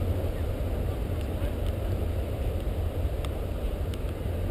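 Wind rumbling on the camera microphone as a steady, low buffeting noise, with a couple of faint sharp ticks near the end.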